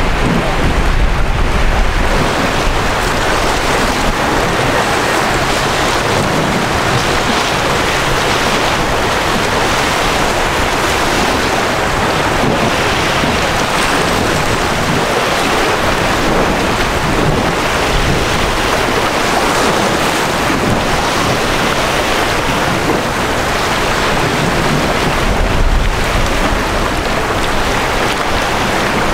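Strong wind buffeting the microphone over choppy water: a steady, loud rushing noise, with heavier low gusts near the start and again near the end.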